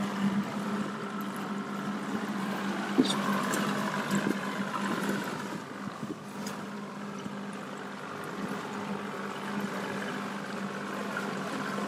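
Aluminium boat's motor running steadily as it moves through the water, a low even hum under water noise against the hull, with a sharp knock about three seconds in.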